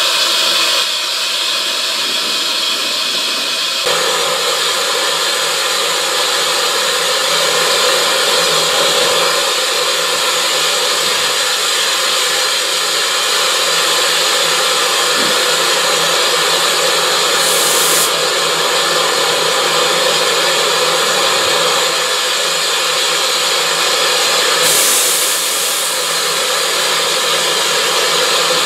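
Narrow-gauge steam locomotive standing still with a steady, loud hiss of escaping steam. The hiss grows sharper twice for about a second, in the middle and near the end.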